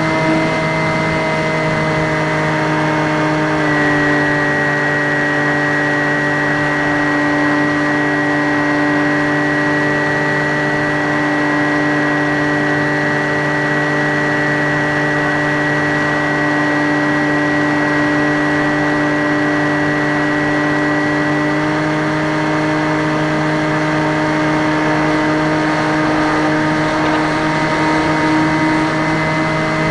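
Skywalker X5 flying wing's electric motor and propeller whining steadily in flight, heard close up from the onboard camera. The pitch steps down slightly about four seconds in and steps back up about twenty-two seconds in.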